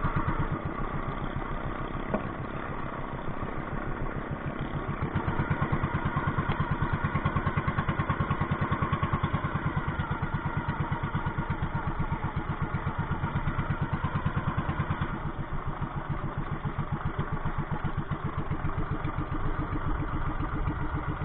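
Small engine running steadily with an even, rapid chugging beat, louder for a stretch in the middle and easing off later.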